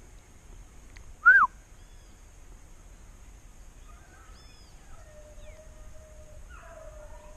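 Wild bird calls: one loud, short call about a second in that rises and then falls in pitch, then fainter chirps and a drawn-out call in the second half.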